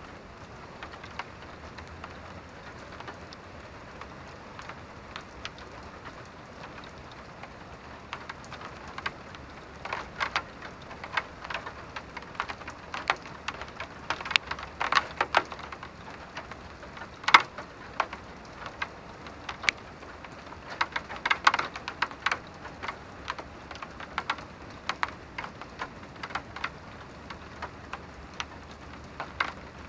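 Rain falling, with a steady soft hiss and irregular individual drops striking a hard surface. The drops come thicker and louder through the middle, one especially loud near the middle.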